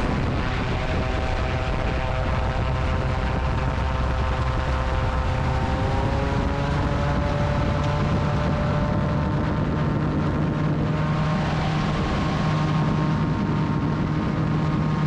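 Gyroplane's engine and pusher propeller running at take-off power through a grass take-off roll, with the spinning rotor overhead. The note is steady, then creeps up in pitch about halfway through.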